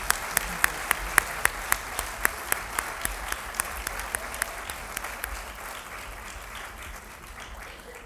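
Audience applauding, with one nearby pair of hands clapping loudly and evenly at about four claps a second; the applause fades away near the end.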